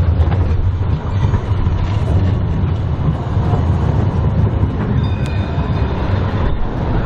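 Siemens Combino tram running past close by, a steady low rumble of motors and steel wheels on rails. About five seconds in, a short ringing tone sounds.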